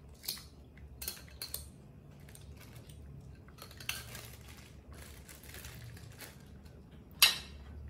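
Light clinks and knocks of a ceramic plate and cut fruit being handled, a few scattered taps, with one sharp, much louder clink near the end.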